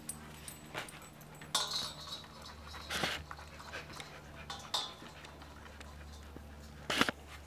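Small dog sniffing and drinking at a stainless steel water bowl: a handful of short, irregular snuffling and lapping noises over a low steady hum.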